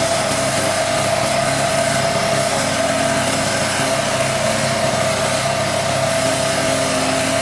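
Trâu Vàng self-propelled lawn mower's small engine running steadily at constant speed, with a strong, even hum.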